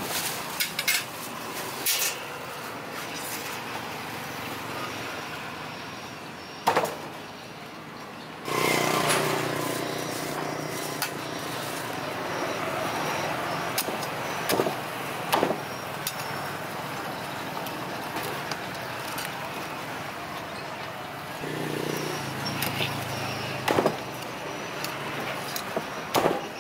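Roadside street background with vehicle engines passing, once about nine seconds in and again around twenty-two seconds in. Scattered sharp metallic clicks and knocks come from tongs and a cleaver handling roast duck on a metal tray.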